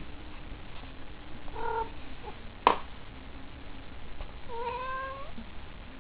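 Cat giving two short meows: a brief one about a second and a half in, and a longer one that rises in pitch about four and a half seconds in. A sharp click, the loudest sound, comes between them.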